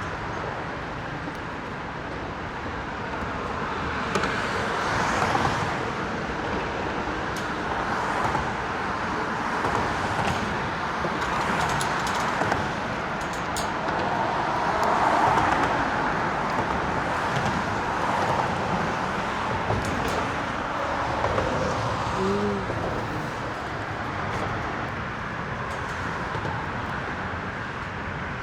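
Road traffic passing on the bridge: a steady noise of tyres and engines that swells as cars go by, about every five seconds. A few faint clicks sound over it.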